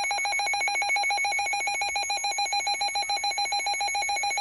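RadioShack 12-243 weather alert radio sounding its built-in alert alarm, a loud, rapidly pulsing electronic beep, triggered by an incoming NOAA Weather Radio warning.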